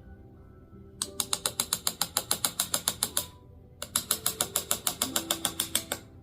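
A mallet tapping a carving chisel into a wooden board, in rapid even strikes about eight or nine a second. The strikes come in two runs with a short pause between them, over faint background music.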